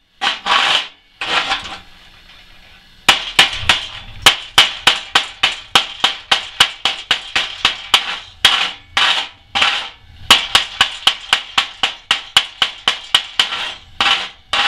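Chipping hammer knocking 7018 slag off a stick-welded steel fillet weld: a few strikes, a short pause, then a fast even run of sharp metal taps, about four a second. The slag is coming off easily.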